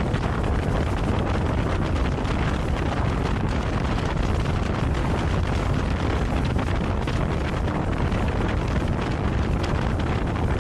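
Wind buffeting the microphone over a motorboat running at speed across the water, a steady rushing noise with a heavy low rumble.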